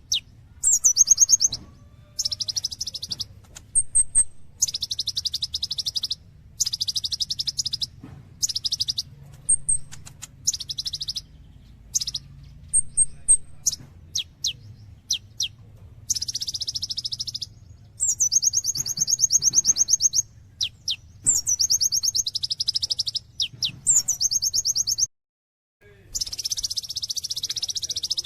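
Kolibri ninja sunbird singing hard and continuously: rapid rattling trill phrases of one to two seconds with short pauses between them, mixed with thin high tweets and quick sweeping notes. The sound cuts out for about a second near the end.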